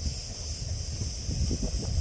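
Steady, unbroken high buzzing of cicadas, with wind rumbling on the microphone underneath.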